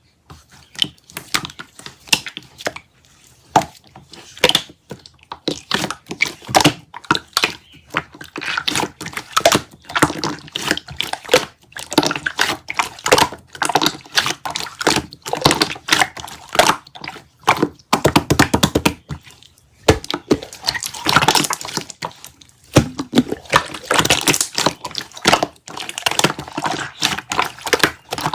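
Slime being squished and pressed by hand, giving a dense run of wet clicks and pops, with a quick rapid series of clicks about eighteen seconds in.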